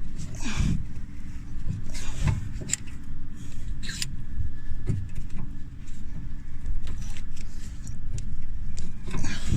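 Hand tools and brake parts clinking, knocking and scraping now and then, over a steady low rumble.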